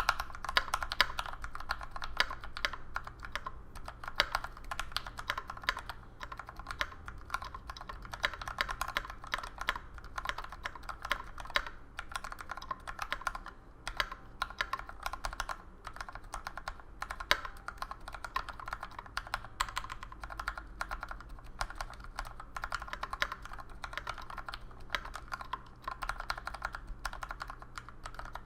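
Continuous typing on a Rama M60-A mechanical keyboard with 62g Tangerine linear switches lubed with 205g0 and drawer liner inside the case: a steady, irregular stream of keystrokes, several a second.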